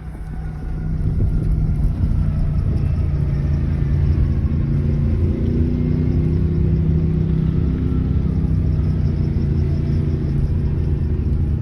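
Ford vehicle's engine and drivetrain running, heard from inside the cab while driving off-road: a low rumble that grows louder over the first second or so, then holds steady.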